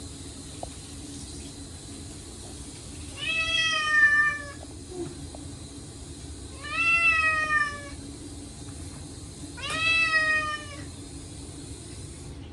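Short-legged Munchkin cat meowing loudly three times, each call about a second long and rising then falling in pitch, protesting at being bathed. A steady high hiss runs beneath and stops near the end.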